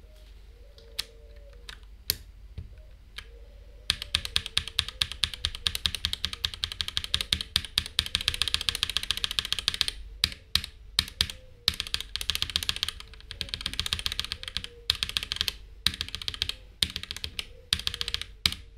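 Typing on a Noir N1 Pro mechanical keyboard fitted with aftermarket switches for a sound test: a few single key clicks, then a fast run of keystrokes about four seconds in, then scattered separate presses and another quick burst of typing.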